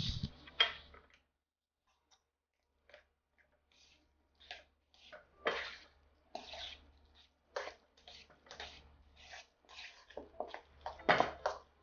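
Metal fork mixing mashed potatoes in a stainless steel bowl: irregular scrapes and taps of the fork against the bowl with soft squishing of the mash. It opens with a low knock, the strokes come sparsely at first and grow more frequent from about four seconds in.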